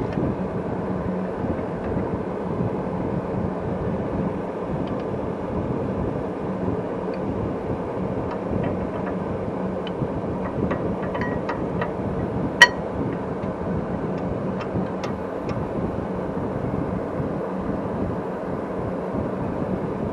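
Steady background noise, with faint metallic clicks as brake parts are handled and fitted at a car's rear hub, and one sharp metal clink about halfway through.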